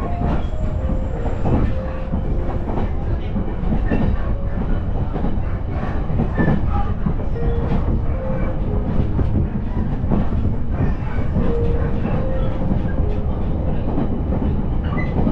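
Moving train heard from inside the passenger car: a steady rumble of the running train, with wheels clicking over the rail joints.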